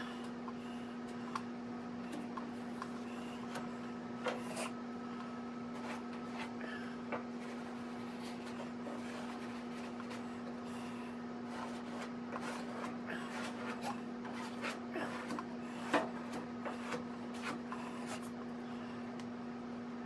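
Plastic body-filler spreader scraping and smearing glazing spot putty across a truck fender's patch panel: irregular short scrapes and clicks, with a sharper click about 16 seconds in. A steady hum runs underneath.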